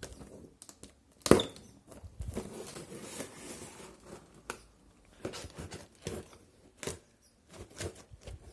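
Cardboard printer box being opened by hand: scraping and tearing of cardboard and tape with rustling packing, broken by handling knocks, the loudest a sharp knock about a second in.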